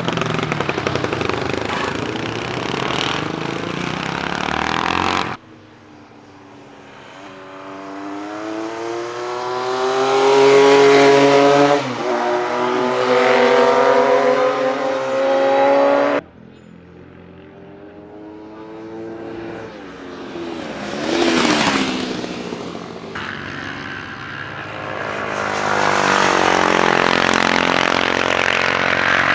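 Classic racing motorcycles at speed on track, in several short clips: one engine note climbs steadily as a bike accelerates hard, dipping once at a gear change partway, and later another bike passes close by, its pitch falling as it goes away.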